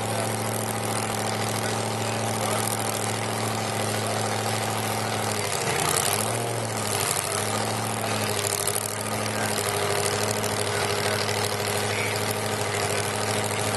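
Supercharged small-block Chevy V8 in a Ranger pickup drag truck idling steadily, its engine note wavering briefly about halfway through.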